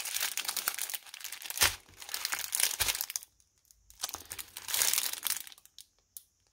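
Thin plastic packaging crinkling as a strip of small zip bags of diamond-painting rhinestones is handled, in two spells with a short pause between, with a couple of light knocks.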